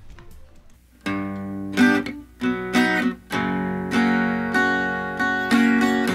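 Music: strummed acoustic guitar chords, each ringing on, beginning about a second in after a brief quiet.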